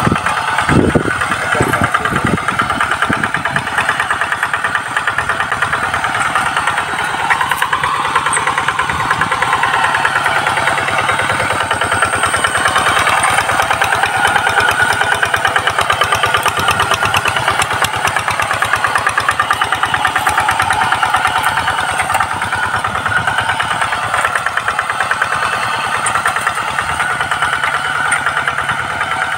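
Two-wheel hand tractor's single-cylinder diesel engine running steadily under load as it pulls iron cage wheels through the soil, its rapid firing pulses even throughout.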